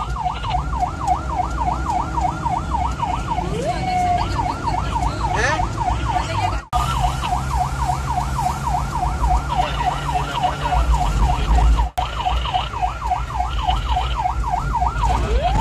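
Ambulance electronic siren in fast yelp mode, warbling up and down about four times a second over the low rumble of the vehicle, heard from inside the cab. A few seconds in the yelp stops for one rising sweep, then resumes. The sound cuts out briefly twice.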